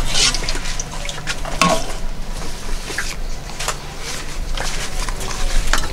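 Food being served by hand: scattered clicks and taps of a spoon against bowls and pots, with the rustle of a stiff banana leaf being handled and folded, over a steady low hum.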